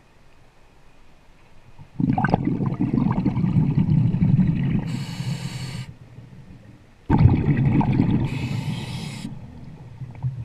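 Scuba diver breathing through a regulator underwater, two breaths about five seconds apart. Each exhalation is a rush of bubbles rumbling past the microphone, and a short hiss of the regulator on the inhalation follows while the bubbles fade.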